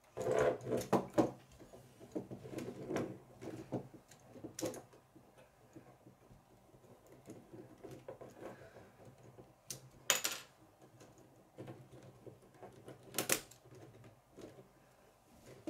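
Plastic K'nex construction pieces clicking and knocking as they are handled and pressed together: a quick flurry of clicks in the first second or so, then scattered ones, with sharper single clicks about ten and thirteen seconds in.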